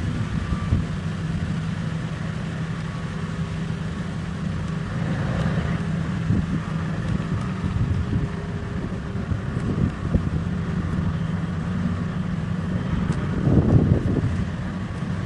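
Big diesel engine of heavy mining machinery running steadily with a low drone, with scattered knocks and a louder swell near the end.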